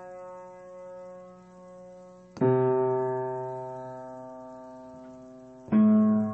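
Background music of sustained keyboard chords: a chord fading away, then a new chord struck about two and a half seconds in that rings and slowly fades, and another struck louder near the end.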